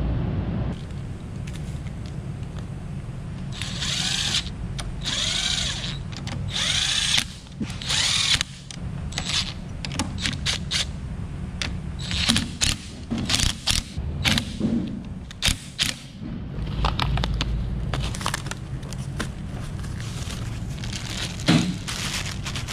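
Cordless driver with a socket on an extension, tightening motorcycle handlebar clamp bolts. It is run in a few longer pulls that wind up and down in pitch, then in many short trigger blips.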